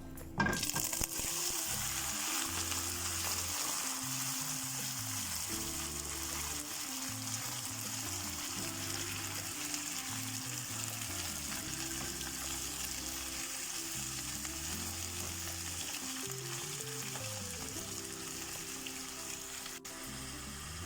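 Marinated chicken frying in hot oil in a pan, a steady sizzle that starts suddenly about half a second in.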